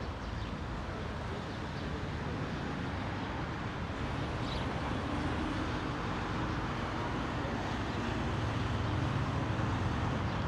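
City street ambience: a steady rumble of road traffic from cars and buses passing on a nearby road, with a vehicle's engine hum rising a little in the middle.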